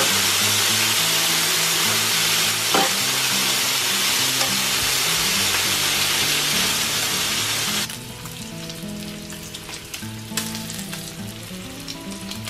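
Bacon strips sizzling loudly in their own fat on a flat electric grill plate as they cook toward crisp. About eight seconds in the sizzle drops abruptly to a quieter spatter of pops and crackles. Soft background music plays underneath.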